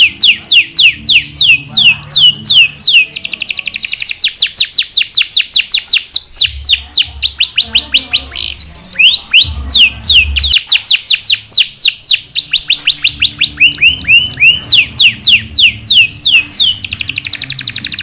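Domestic canary singing continuously: long runs of quick, sharp, downward-sweeping whistled notes, broken by faster rolling trills.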